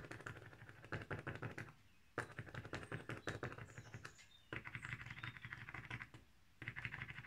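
Rapid, scratchy strokes of a drawing or painting tool on art-journal paper as colour is worked onto the page. They come in four bursts of one to two seconds each, with short pauses between them.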